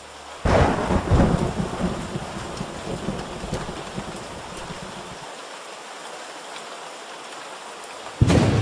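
A sudden thunderclap about half a second in rumbles and crackles away over several seconds, over the steady hiss of rain. A second clap breaks near the end.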